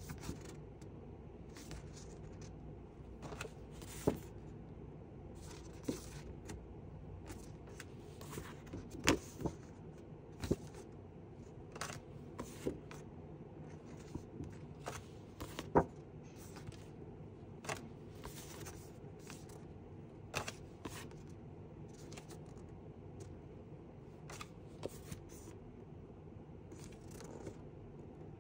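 Sheets of a 6x6 designer paper pad being leafed through by hand: soft paper rustles and slides with scattered light taps and clicks, over a steady low hum.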